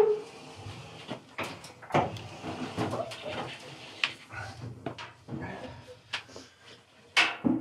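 Maytag top-load washer being pushed and slid back into place: scraping as the cabinet moves, with scattered irregular knocks and bumps as it is shoved and handled.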